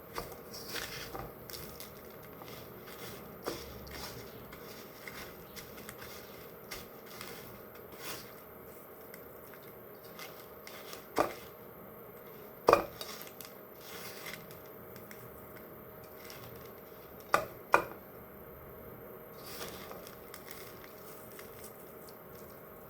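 Kitchen utensils and dishes clinking with light scattered clicks while a chicken Kiev is coated in flour and breadcrumbs. Four sharper knocks stand out: two near the middle, a second and a half apart, and a close pair about five seconds later.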